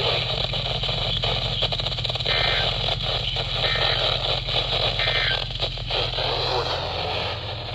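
Weather radio receiver hissing and crackling with static over a steady low hum: a weak, noisy reception of the broadcast. Three faint short tones come through the static about a second and a half apart.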